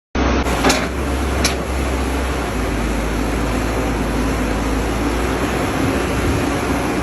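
Heavy diesel construction machinery, an excavator and bulldozer at work, running steadily with a low hum. Two sharp metallic knocks come in the first second and a half.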